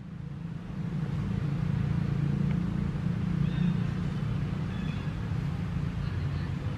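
Steady low rumble of a distant motor-vehicle engine, growing louder over the first second, with a few faint high-pitched chirps near the middle.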